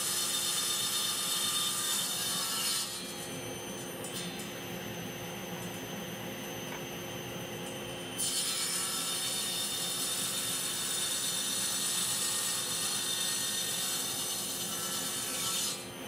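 Table saw running, its blade ripping waste off a wooden bench leg fed along the fence: a steady machine whine with a high hiss. The sound drops in level and dulls for about five seconds partway through, then comes back up.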